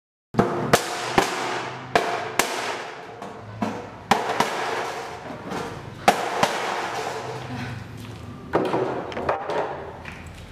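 Chisel being struck to cut a hole through a corrugated galvanized steel roofing sheet: a series of sharp, irregularly spaced metallic strikes, each ringing briefly, with scraping and clatter of the sheet between them. The sound starts abruptly just after the beginning.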